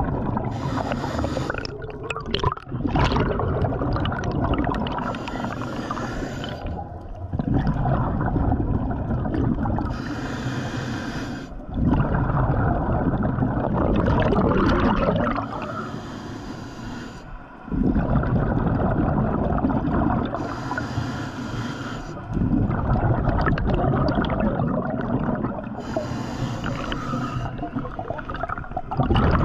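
Scuba diver breathing through a regulator underwater: six hissing inhales about five seconds apart, each followed by the low, gurgling rush of exhaled bubbles.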